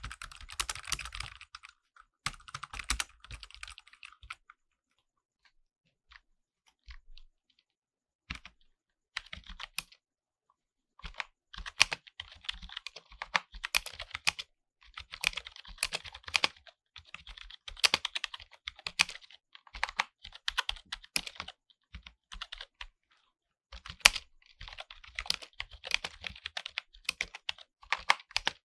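Typing on a mechanical keyboard: rapid runs of key clacks, with only a few scattered keystrokes for several seconds, then steady fast typing from about eleven seconds in.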